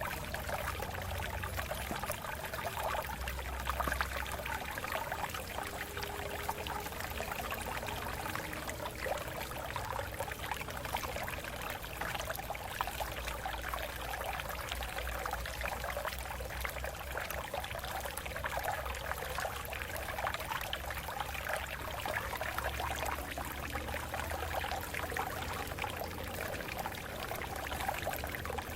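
Water flowing and splashing over rocks in a stream: a steady, continuous babble of small splashes and trickles.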